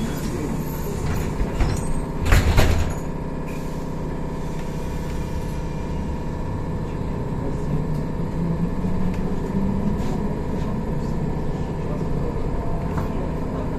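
Ride inside a BKM 321 trolleybus: steady hum and whine of the electric drive. About two seconds in there is a short, loud burst of hiss and clatter, preceded by a few clicks.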